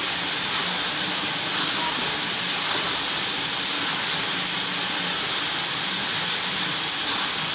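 Silk reeling machine running steadily, a constant whirring hiss with a faint low hum, with one brief click about two and a half seconds in.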